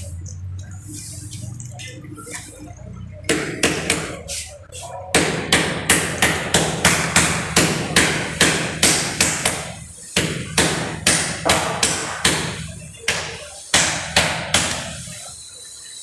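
Repeated sharp taps on a ceramic wall tile, about two to three a second, starting a few seconds in and easing off near the end. The tile is being tapped to bed it into its layer of cement mortar on the wall.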